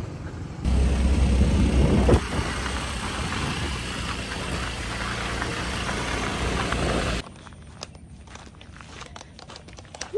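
Motor scooter ride: wind buffeting the microphone over the scooter's running engine, a steady noisy rumble that grows louder under a second in. At about seven seconds it cuts off abruptly to a quieter background with scattered light clicks.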